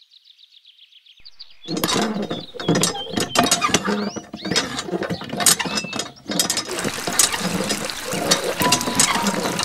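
Handmade miniature hand pump being worked by its handle: a fast, irregular rattle of clicks and small squeaks, faint for the first second or two, then loud. About two-thirds of the way in, a hiss of water joins as the pump's thin stream starts splashing into the pond.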